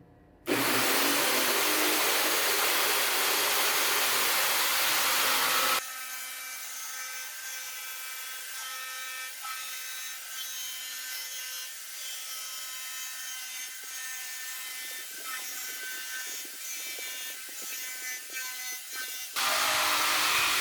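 Jigsaw cutting wood: a loud, steady sawing noise that drops abruptly to a quieter, thinner whine about six seconds in, then jumps back to full loudness near the end.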